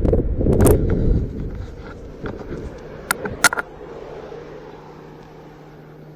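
Wind buffeting the microphone while riding an electric unicycle, loud for about the first second, then dropping to quieter street traffic sound. Two sharp clicks come about three seconds in, and a faint steady low hum sets in near the end.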